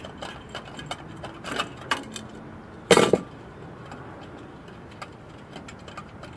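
Light metallic clicks and scrapes as a steel blank cover plate is worked loose from a slot in an HP Procurve 4108gl switch chassis, with one loud clank about three seconds in.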